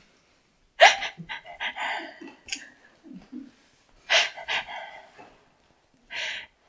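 A woman laughing close to a lapel microphone, in breathy bursts: a long one about a second in, another about four seconds in, and a short one near the end.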